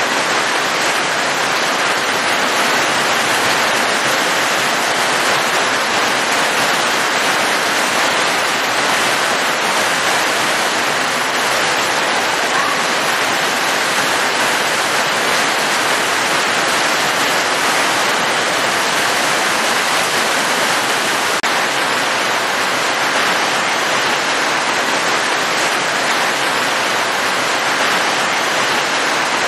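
Heavy rain pouring down steadily, a dense, even hiss that does not change.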